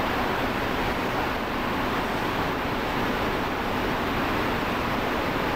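Steady, even background noise of a factory floor, with no distinct knocks or voices standing out.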